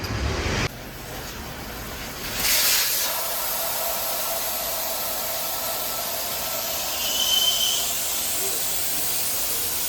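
Compressed air hissing from an air line into a new motorcycle tyre as it is inflated, with a loud gush of air about two and a half seconds in and then a steady hiss.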